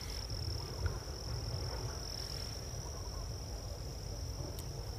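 An insect trilling steadily at one high pitch, over a low rumble.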